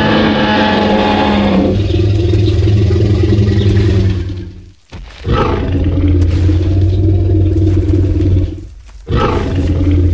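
Tyrannosaurus rex roar sound effect: long, deep, loud roars, the first fading out about four seconds in, a second starting after a short break about five seconds in, and a third starting near the end.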